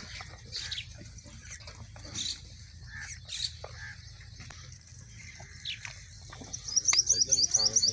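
Small birds chirping, ending in a quick run of loud, evenly repeated high chirps near the end.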